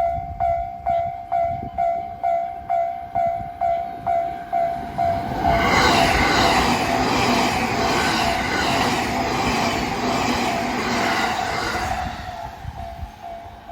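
Japanese level-crossing warning bell ringing its 'kan-kan' about twice a second. About five and a half seconds in, a train passes over the crossing for about six seconds, its wheel noise drowning the bell. The bell then rings on, quieter.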